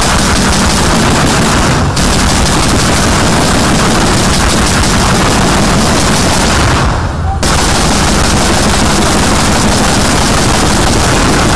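Dense, sustained automatic gunfire from many weapons, so rapid that the shots run together into an almost unbroken din, briefly easing about seven seconds in.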